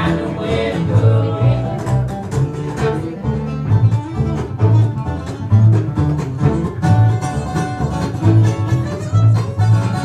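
Acoustic folk string band playing without vocals: fiddle over strummed acoustic guitar with a steady, rhythmic bass line.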